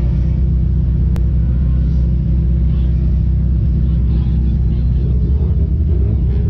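Race car engine idling, heard from inside its stripped cabin: a steady low rumble, with a single sharp click about a second in.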